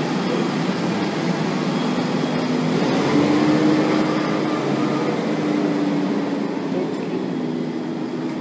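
Fendt 309 Vario tractor's four-cylinder diesel engine running under load as it pulls away with a front-loader grab full of manure; its note rises about three seconds in, holds, then drops and fades as the tractor moves off.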